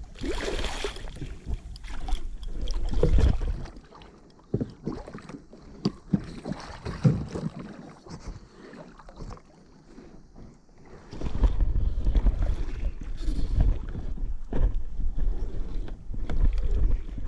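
Wind buffeting the microphone in two long spells, with scattered knocks and splashes in between as a hooked blue shark is handled at the side of a kayak to get the hook out.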